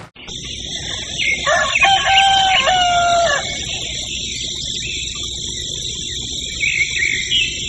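A rooster crowing once, starting about a second in and lasting about two seconds, over a steady high-pitched background.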